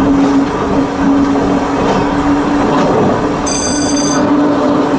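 Volk's Electric Railway car running along the track: a steady electric-motor hum over continuous wheel-on-rail running noise. A brief high-pitched squeal comes about three and a half seconds in.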